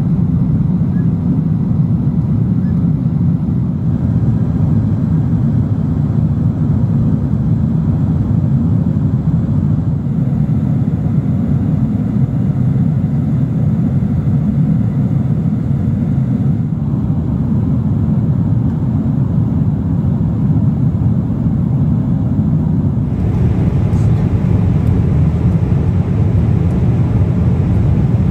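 Steady cabin noise of a Boeing 777 airliner at cruise: a low, even rush of engines and airflow. About 23 seconds in it turns a little brighter, with more hiss.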